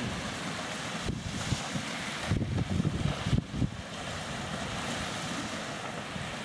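Wind buffeting the microphone in uneven low rumbles over a steady rush of wind-whipped waves.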